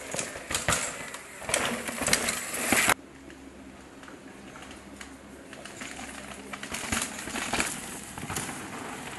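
Downhill mountain bike clattering over a rocky trail, with loud knocks and rattles from tyres, chain and suspension that cut off suddenly about three seconds in. After that comes a quieter rush of tyres on dirt with a few fainter knocks.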